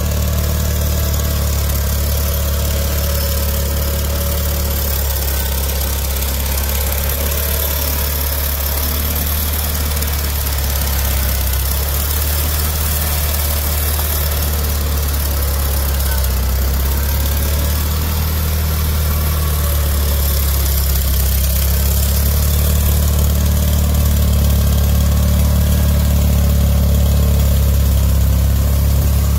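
The Kohler Magnum 18 hp opposed-twin engine of a Deutz-Allis 1918 Ultima garden tractor running steadily.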